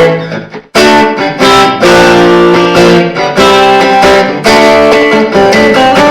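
Electric guitar with a 5-way pickup switch played through an amp on a clean tone, with the bridge and middle pickups combined: a run of strummed chords ringing out one after another, with a brief break just under a second in.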